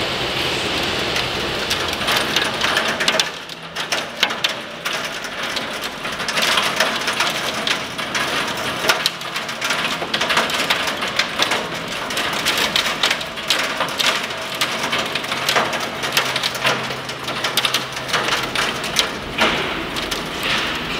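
Torrential rain mixed with hail pelting down and drumming on the ground, cars and surfaces as a dense, unbroken clatter of impacts. The level dips briefly about three seconds in.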